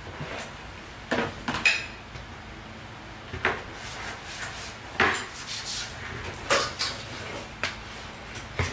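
Household items being handled: irregular clattering knocks of plastic and metal kitchenware, about eight sharp strikes, with one short high squeak less than two seconds in.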